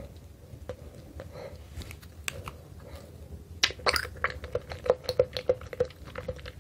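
Mouth chewing a mouthful of fruit jelly squeezed from a jelly straw: scattered mouth clicks at first, then from about three and a half seconds in a quicker run of chewing clicks, about three or four a second.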